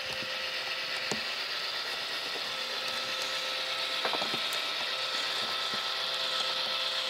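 Athearn Genesis F3 model diesel locomotives with Tsunami sound decoders giving off a steady mechanical whir, with a few faint clicks.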